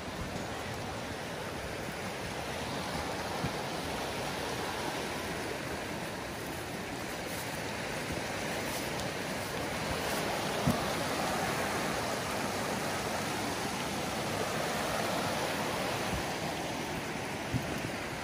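A small stream running over rocks, a steady babble that swells a little in the middle, with a few short sharp clicks.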